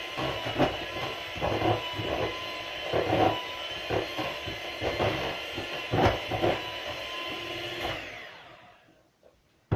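Electric mixer beating chocolate cake batter, its motor running steadily with louder knocks and scrapes every second or so. The motor winds down and stops about eight seconds in.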